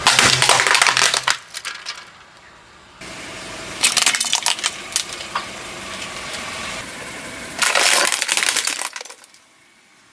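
Brittle objects crushed under a car's tyres: dense crackling and crunching in three bursts, with sudden jumps between them.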